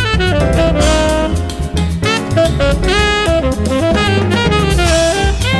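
Background jazz music: a saxophone lead playing sliding phrases over a bass line and drum kit.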